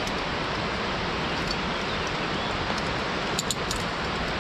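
Steady rushing noise of wind on the camera microphone, with a few light clicks about three and a half seconds in.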